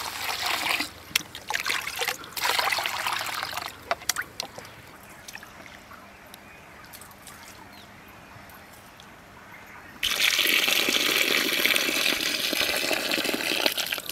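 Basmati rice being washed in a clay pot: water poured in with splashing, then hands swishing and rubbing the grains in the water. About ten seconds in, a steadier, louder rush of water starts as the rinse water is poured off over the rim.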